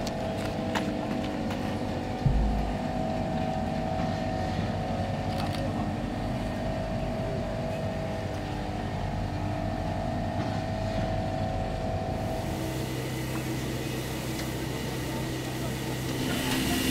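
Class 52 steam locomotive standing on a turning turntable: a steady mechanical hum, a few clicks and one knock about two seconds in. Steam hiss from the cylinder area grows over the last few seconds.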